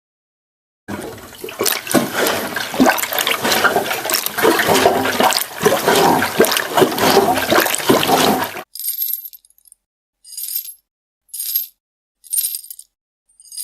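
Sound effects played one after another: a rushing, splashing water sound full of small clicks for about eight seconds, then five short bright high-pitched bursts about a second apart.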